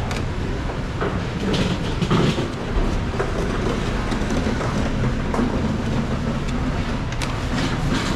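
Steady low background rumble with scattered sharp clicks and taps of a knife cutting fruit against a plastic cutting board.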